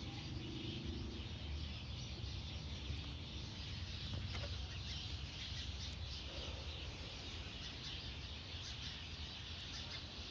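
Steady low rumble and hiss heard in a 2013 Chevy Malibu, with faint chirps over it: the car's weird noise.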